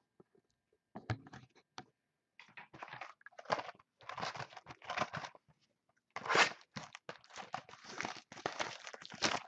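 Plastic shrink wrap being torn and crinkled off a sealed box of 2012 Topps Prime football cards, in irregular rustling tears that start about a second in and come thicker after that.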